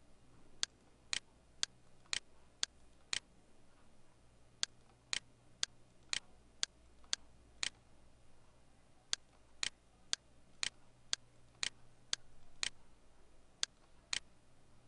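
Computer mouse button clicking in runs of sharp clicks about two a second, with short pauses between the runs, over a faint low hum.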